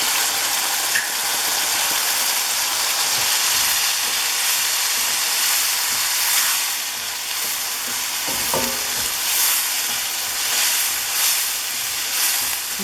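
Onions, green chillies, ginger and garlic sizzling in a little hot oil in a pan, with a steady hiss, while a spoon stirs and turns them a few times.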